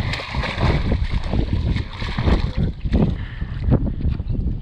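Wind buffeting the microphone in uneven gusts, a rough low rumble, with water moving against a small fishing boat.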